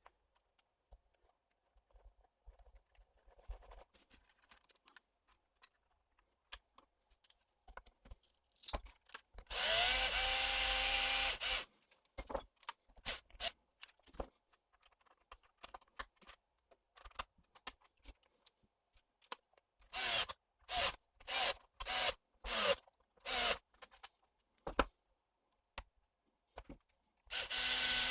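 A small electric motor whirring in bursts, rising in pitch as it spins up: one run of about two seconds, a quick string of about six short bursts, and another run starting near the end. Light clicks and handling noises lie between them.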